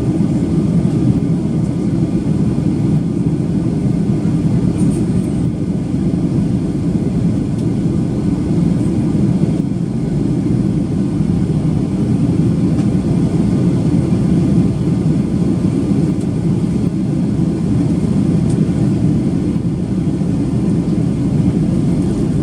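Steady cabin roar of a Boeing 737-800 in flight: the hum of its CFM56 turbofans and the rush of air over the fuselage, heard from inside the cabin, loud and unchanging.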